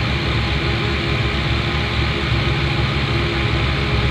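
Heavy diesel truck engine running steadily, heard from inside the cab.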